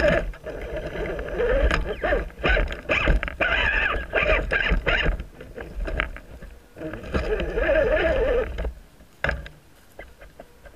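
Small electric motor and gearbox of an RC rock crawler whining, wavering up and down in pitch with the throttle in two spells separated by a short pause, with clicks and knocks of the tires over dirt and rocks. After about eight and a half seconds the whine stops and only a few clicks remain.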